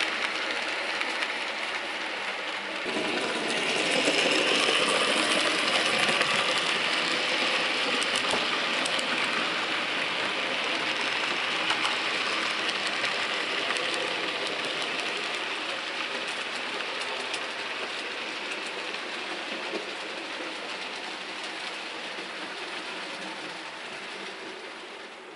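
Model railway train of passenger coaches running along the track: a steady rattle of wheels on rails with a few clicks from rail joints. It grows louder about three seconds in as the train passes close, then slowly fades as it runs away.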